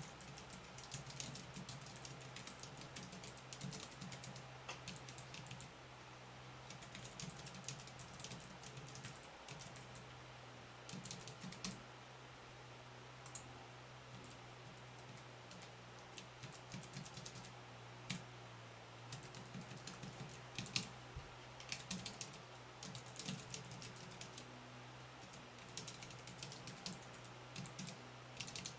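FrogPad one-handed keyboard's keys clicking under quick one-handed typing, in rapid runs of keystrokes broken by short pauses. A low steady hum runs underneath.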